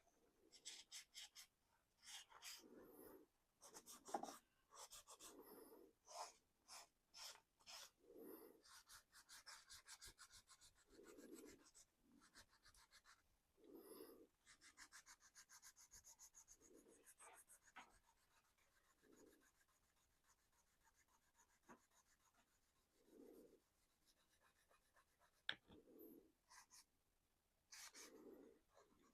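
Faint, irregular scratching and rubbing strokes on a painted plastic body shell as the paint is worked over to weather it, the strokes coming in quick flurries with short pauses between them.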